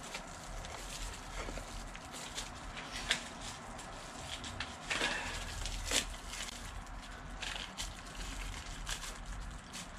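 Packaging of a new wheel bearing being opened by hand: a small cardboard box and a plastic bag crinkling and rustling, with a few small clicks and taps.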